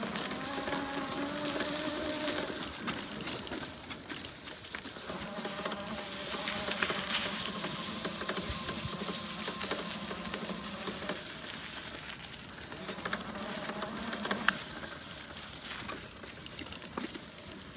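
Homemade electric bicycle's motor whining as it rides over gravel, its pitch drifting up and down with speed, over tyre crunch and scattered rattling clicks.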